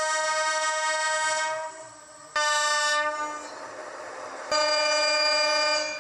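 Japanese train horns sounding three separate blasts, each one steady pitch. A held blast stops a little under two seconds in, a second starts abruptly about two and a half seconds in and fades away, and a third of about a second and a half begins about four and a half seconds in.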